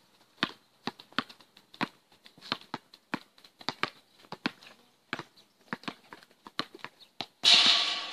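A basketball being dribbled on an outdoor concrete court, sharp bounces about three times a second. A sudden loud rushing noise cuts in near the end and covers the bounces.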